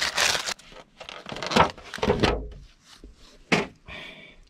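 A loud rush of noise cuts off about half a second in, followed by a few separate knocks and thuds of handling in a small enclosed space and a brief scrape near the end.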